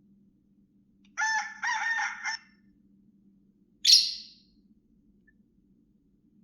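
Nokia 6670's small loudspeaker playing a tone sample: a pitched call of about a second in two parts, then a short, sharp hissing burst about three seconds in that dies away within half a second.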